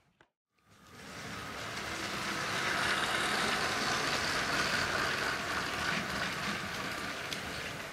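Motorised Lego freight train running past on plastic track: a steady rattle of wheels on the rails with a thin motor whine, growing louder over the first few seconds and easing off near the end.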